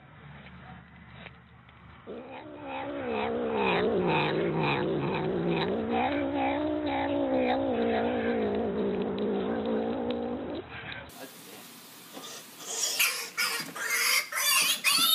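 A cat yowling in one long, wavering call lasting about eight seconds. After a break, a burst of loud, noisy clattering sounds starts near the end.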